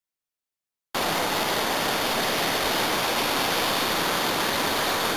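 Dead silence for about a second, then the steady rush of whitewater river rapids cuts in suddenly.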